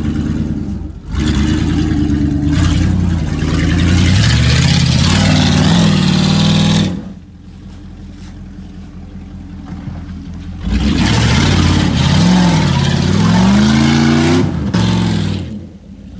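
Jeep Grand Cherokee's engine revving hard as it drives through deep mud, the revs rising and falling repeatedly for about seven seconds. The engine then drops to a lower, quieter note for about three seconds before revving up and down again, falling away near the end.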